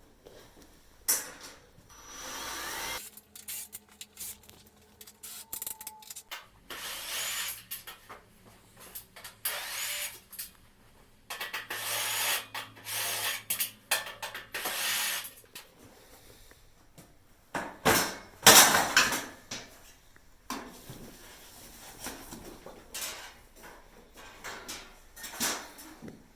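Shipping packaging being pulled apart: repeated rips, scrapes and rustles of cardboard, tape and wrapping in bursts of a second or more, with the loudest one about eighteen seconds in.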